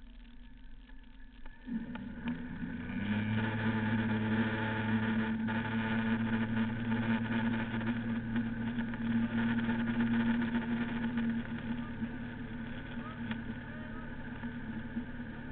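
Ski boat's engine throttling up from idle to pull a water skier up out of the water: the engine note rises sharply about two seconds in, runs steady and loud at speed, then eases a little about eleven seconds in.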